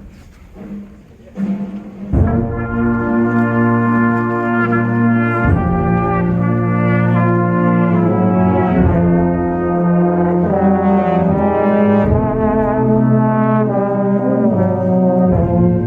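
School concert band playing a slow piece of held chords, with the brass, trombones and trumpets, to the fore. It comes in fully about two seconds in, over a quieter held low note.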